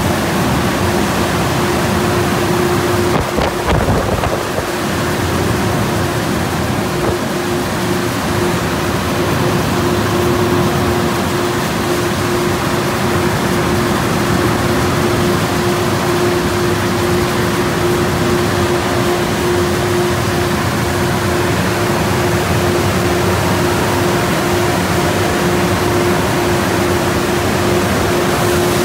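Car wash blower dryers running to dry the car at the end of the wash: a loud, steady rush of air with a steady hum underneath.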